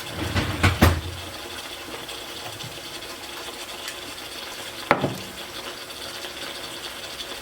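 Cooking utensils knocking and clinking against a pot: a few quick clicks just under a second in and one sharp knock about five seconds in, over a steady hiss.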